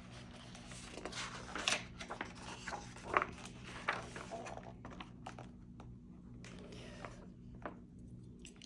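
Pages of a hardcover picture book being turned and handled: soft paper rustles and small taps, scattered through the first half and sparser later, over a faint steady hum.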